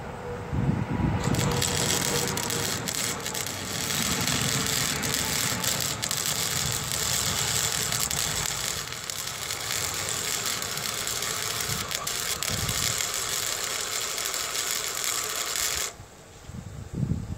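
Electric arc welding on the barn door's old painted steel track: a steady crackling sizzle that starts about a second in and cuts off sharply near the end, followed by a few low thumps.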